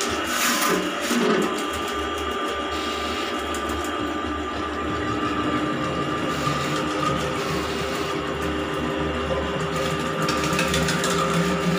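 Electric drain-cleaning machine running steadily, its motor spinning a coiled spring cable that is being fed down a clogged bathroom floor drain.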